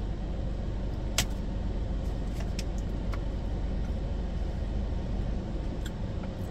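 A car engine idling steadily, a low rumble heard from inside the cabin, with a few small clicks from chewing a fried pickle, the sharpest about a second in.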